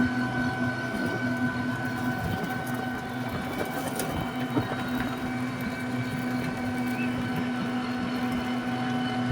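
A vehicle in motion: a steady hum of constant pitch from its engine or motor, over a running rumble.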